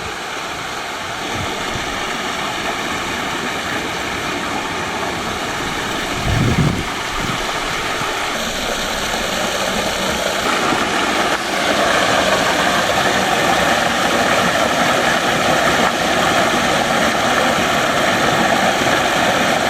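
Steady rush of running water from a small stream, louder from about halfway through. A brief low thump about a third of the way in.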